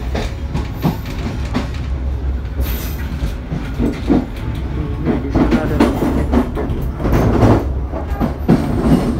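Passenger train running through a station throat: a steady low rumble of the moving train with irregular sharp clacks as its wheels cross rail joints and points, the clacks coming thicker in the second half.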